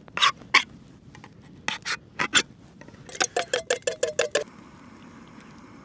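A knife being worked through the lid of a can of baked beans, with no can opener. First come a few separate sharp scrapes, then a quick run of about nine rasping strokes, some seven a second, that stops about four and a half seconds in.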